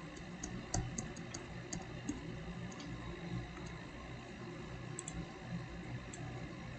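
Computer mouse clicks over a faint steady background hum: a quick run of clicks in the first two seconds, a few more spaced out, and a double click about five seconds in, as the Windows Start menu is opened and a calculator emulator program is launched.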